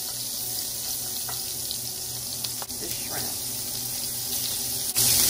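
Butter and olive oil sizzling in a hot cast-iron skillet as precooked shrimp are added, with a few light clicks. The sizzle turns louder near the end.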